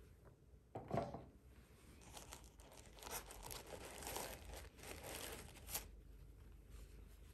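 A knock about a second in, then tissue paper crinkling and a fabric dust bag rustling as shoes wrapped in them are lifted out of a cardboard shoe box, for about four seconds.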